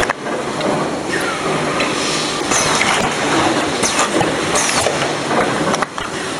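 Automatic chocolate snack-pack packing machine running: loud, continuous mechanical clatter with a short hissing swish about every two seconds.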